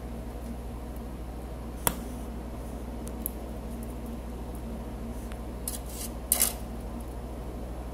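Soldering work on a perfboard: a few small sharp clicks and taps, one about two seconds in and a short cluster a little after six seconds, over a steady low electrical hum.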